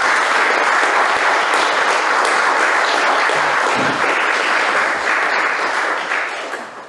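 Audience applauding: many hands clapping in a dense, even patter that fades away over the last second or so.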